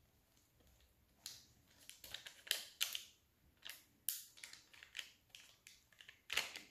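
An oiled spatula spreading a very wet, 100%-hydration focaccia dough over oiled parchment paper in a baking tray: irregular sticky smacks, scrapes and paper crackles, starting about a second in.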